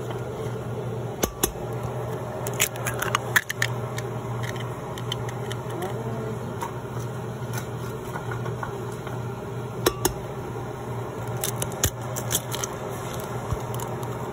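Kitchen handling sounds at a blender jar: scattered sharp clicks and taps, busiest about three seconds in, as ingredients including a cracked egg go into the jar, over a steady low hum.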